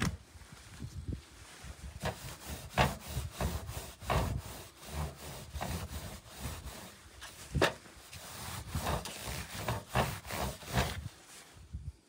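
A cloth scrubbed back and forth on a corrugated galvanized-metal washboard in a wooden frame: repeated rubbing strokes, about two a second, that stop shortly before the end.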